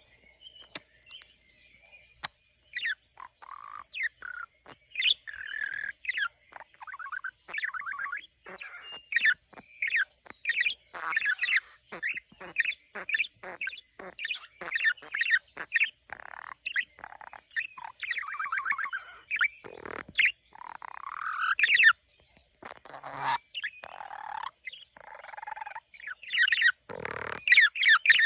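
Pet budgerigar warbling and chattering: a long, continuous run of quick chirps, warbled notes and clicks.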